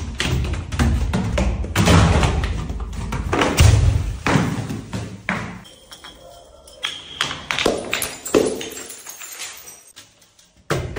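Full bottles tumbling down stone stairs: an uneven run of heavy thumps and sharp taps as they strike step after step, first large plastic soda bottles and then smaller glass ones. The knocking thins out midway and stops briefly near the end.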